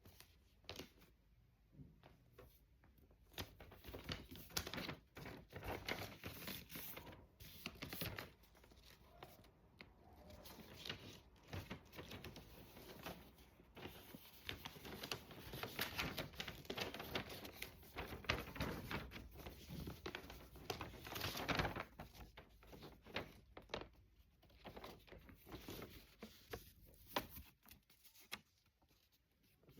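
Sheet of paper being handled and folded, with irregular rustling and light crinkling as the creases are pressed down.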